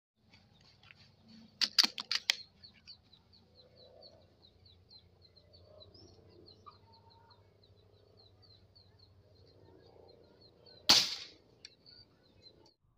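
Air rifle firing one sharp shot about eleven seconds in, the loudest sound, at a dove perched on a roof. A cluster of sharp clicks comes about two seconds in, and faint rapid high chirping repeats in the background.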